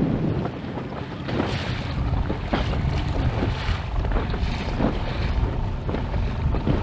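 Wind buffeting the microphone and choppy water slapping and splashing against the hull of an inflatable boat under way.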